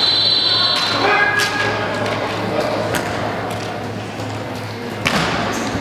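Kendo fencers' long, drawn-out kiai shouts, with sharp clacks of bamboo shinai striking each other or armour, the loudest clack about five seconds in.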